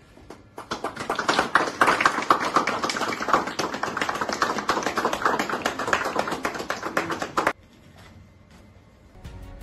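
A group of people clapping, quick and uneven, which cuts off suddenly about seven and a half seconds in.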